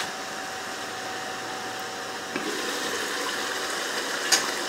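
Chicken and onion stew simmering in a lidded pan, a steady bubbling hiss. It grows a little louder about halfway through as the lid comes off, with a short click near the end.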